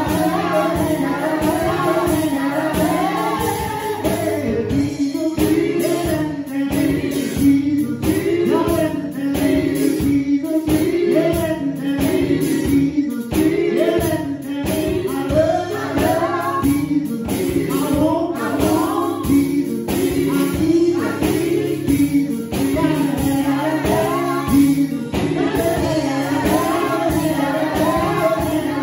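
Gospel song: voices singing over a steady beat.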